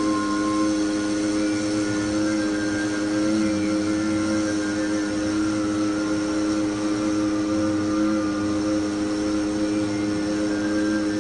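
A steady drone of several held tones, unchanging and unbroken throughout.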